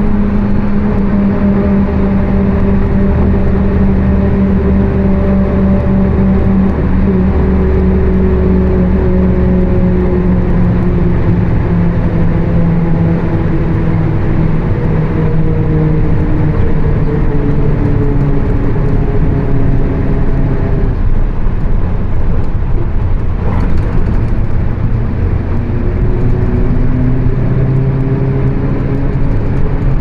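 Mercedes-Benz OF 1724 BlueTec 5 bus on the move, with a loud differential roar and a pitched drone that sinks slowly as the bus slows. The drone drops out about two-thirds of the way through, then climbs again near the end as the bus picks up speed.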